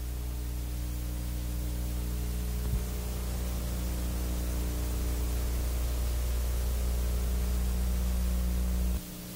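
Steady low electrical hum with hiss, the background noise of a VHS tape transfer over a silent end card. There is one faint click about three seconds in, and the hum cuts off near the end.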